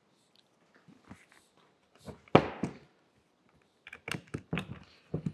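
Clicks and knocks of a cordless impact driver being handled and its bit set into the cover screws of a winch's aluminum housing. One louder knock comes about two seconds in, and a quick run of sharp taps follows near the end.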